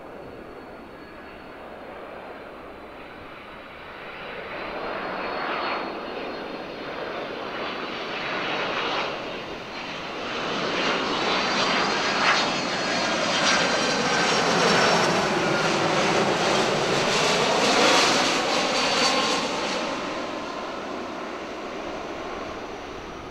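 Boeing 767-300ER twin-engine jet airliner passing by. The engine noise swells over several seconds, peaks with a high fan whine that drops slightly in pitch as it goes past, and then fades.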